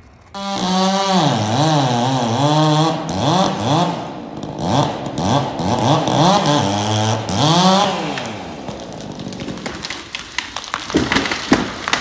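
A chainsaw cutting into a standing tree, its engine pitch rising and falling as it is revved under load, then easing off. Near the end come sharp cracks and snaps of wood as the tree breaks from its stump and starts to fall.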